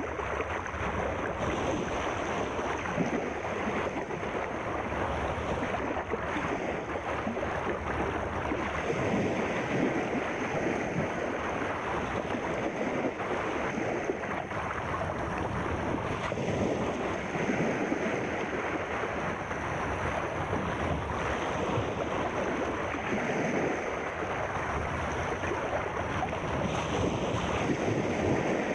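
Sea waves washing continuously, a steady rush of surf noise that swells a little every several seconds.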